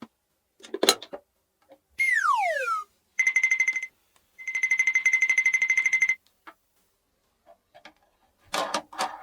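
Electronic alarm ringing: a rapid, high, buzzing beep in two bursts, the second longer, preceded by a falling whistle-like glide.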